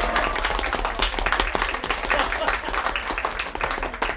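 A room full of people applauding, many hands clapping quickly and irregularly, with a few voices calling out among the claps.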